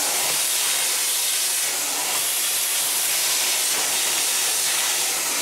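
Vacuum cleaner with a round brush nozzle running steadily, sucking spilled breadcrumbs off a gas hob: an even, loud hiss.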